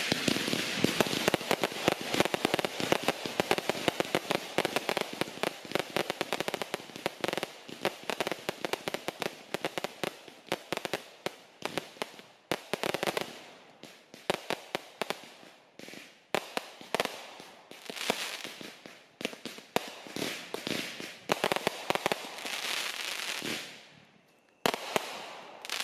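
Aerial fireworks finale: a dense, rapid run of bursting shells and crackling that thins into separate volleys after about halfway, breaks off briefly near the end, then comes back in one last flurry.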